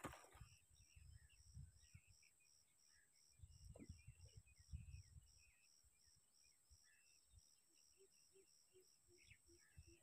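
Near silence: an insect chirping faintly in an even pulse of about three a second, with scattered short bird chirps and a few low rumbles about three to five seconds in.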